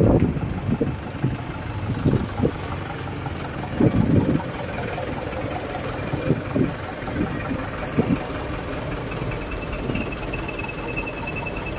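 Truck engine running at idle among road traffic, with irregular swells in the rumble and a faint high whine near the end.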